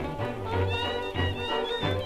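Background music with a rhythmic bass line under sustained higher melody notes.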